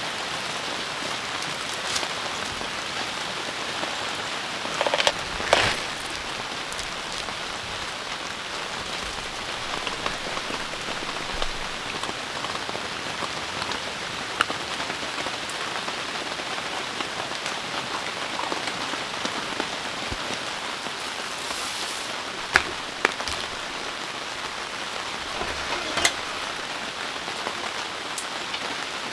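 Heavy rain pouring down steadily. A handful of sharp taps and knocks cut through it: two about five seconds in, two more about three-quarters of the way through, and one shortly after.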